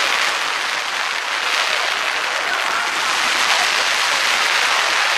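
A crowd applauding: steady, dense clapping.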